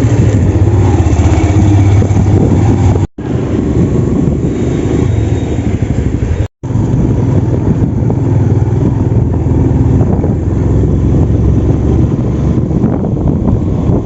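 Motorcycle engine running steadily while riding, with wind rushing over the microphone; the sound drops out briefly twice, about three and six and a half seconds in.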